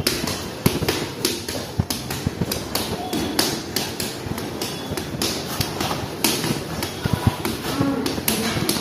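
Rapid bare-fist punches landing on a man's stomach through his shirt: a quick, uneven string of slaps and thuds, about three or four a second.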